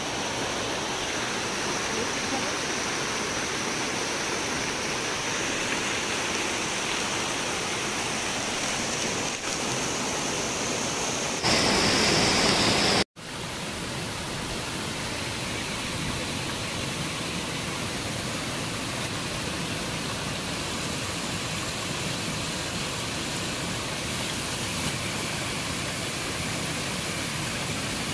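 Steady hiss of heavy rain and rushing water. It grows louder briefly and then cuts out abruptly for a moment about thirteen seconds in before carrying on.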